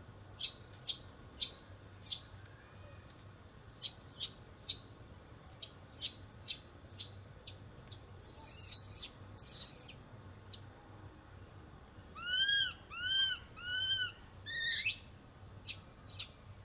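Baby long-tailed macaque squeaking: bunches of short, high-pitched squeaks, several a second. About twelve seconds in come three arching calls, each rising and falling, then one rising squeal.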